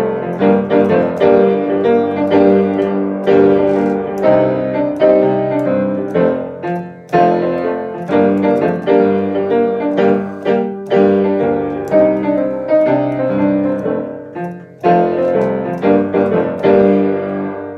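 Solo piano instrumental break in a song: chords and melody notes struck in a steady rhythm, with no singing.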